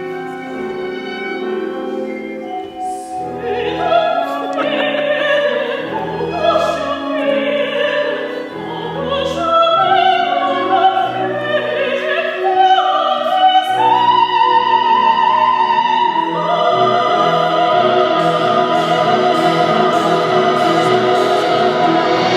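Operatic singing with instrumental accompaniment. A solo voice moves through a melodic line over deep bass notes, then about two-thirds of the way in settles onto a long, high held note with vibrato.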